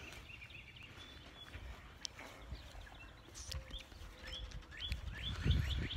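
A small bird chirping over and over, short falling chirps that come thicker and faster in the second half, with a low rumble underneath near the end.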